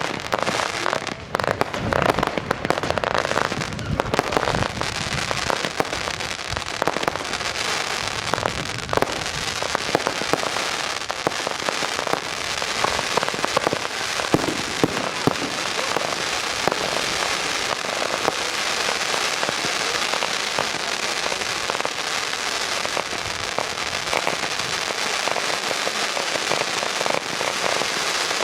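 Fireworks display: a dense, continuous crackling of many small bursts, with heavier separate bangs in the first few seconds.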